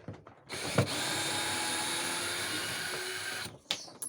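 Power drill running steadily for about three seconds, starting about half a second in, with a sharp knock just under a second in, used while dismantling a washing machine to get at the drum bearing.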